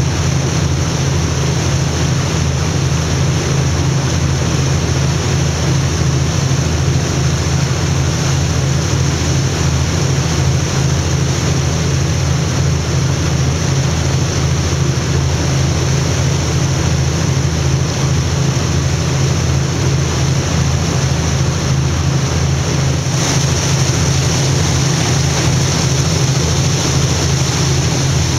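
Tour boat under way: the engine's steady low drone, with water rushing past the hull and wind on the microphone.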